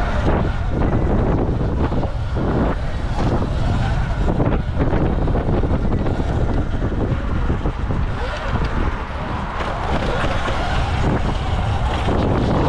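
Steady wind buffeting the microphone while riding a Surron electric dirt bike, over the rumble of the tyres on brick and cobblestone paving.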